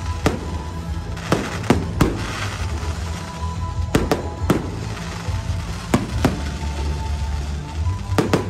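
Aerial firework shells bursting: about nine sharp bangs at irregular spacing, some in quick pairs, over loud show music with a steady bass line.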